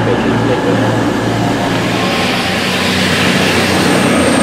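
CrossCountry Voyager diesel train's underfloor engines running with a steady hum. About two seconds in this changes to another Voyager's engine and wheel noise as it runs through a station.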